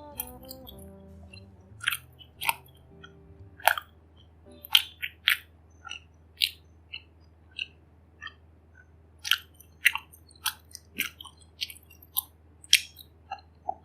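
Close-miked chewing of soft, sticky Malaysian kuih: a run of irregular, sharp, wet mouth clicks, roughly two a second.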